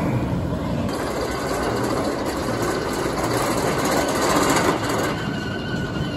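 Roller coaster train running along RMC I-Box steel track on a wooden support structure: a steady rumble that grows louder for a moment about four seconds in.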